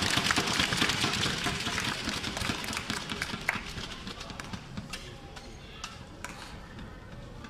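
Arena crowd noise of voices and clapping, loudest at the start and fading over the first few seconds, then a few sharp racket hits on a shuttlecock as a doubles badminton rally goes on.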